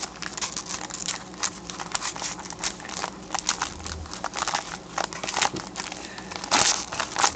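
Foil wrapper of a hockey trading-card pack crinkling as it is pulled open and handled, a dense run of irregular crackles, loudest about six and a half seconds in.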